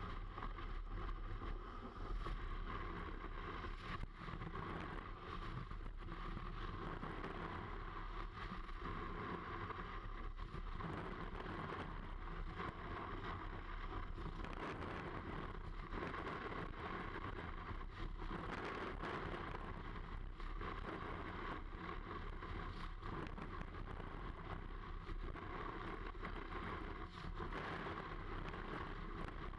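Snowboard sliding and carving over packed snow: a steady scraping hiss from the board with wind rushing over the microphone, and now and then a short knock as the board hits bumps.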